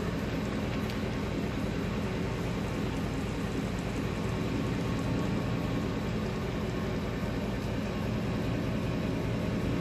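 Ford F-150's 5.4 L Triton V8 idling with a steady, even drone.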